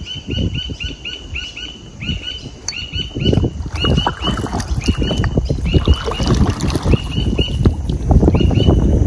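A bird calling a rapid string of short, repeated high notes, several a second, broken by brief pauses. Under it runs a low rumble of wind on the microphone and knocks from movement in the kayak, which grows louder near the end.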